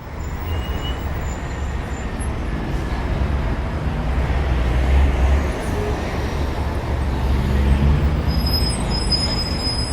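Steady low rumbling background noise, swelling slightly around the middle and again near the end.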